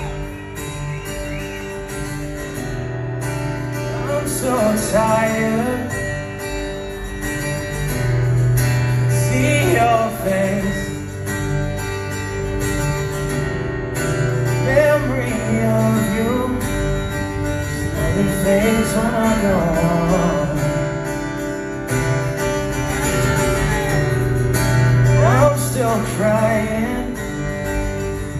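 Acoustic guitar strummed in a slow song played live, with a voice singing over it in phrases.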